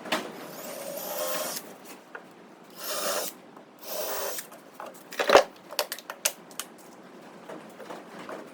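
A small power tool runs in three short bursts, then a sharp knock, the loudest sound, and a quick run of lighter clicks.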